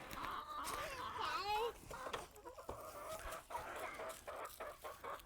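Chickens clucking faintly, with a few wavering calls in the first couple of seconds, then faint scattered clicks.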